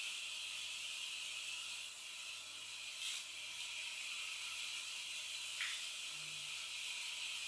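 Atomix micro RC toy car's tiny electric motor and gears whirring at a high pitch as it drives, with a short falling note about five and a half seconds in as it slows.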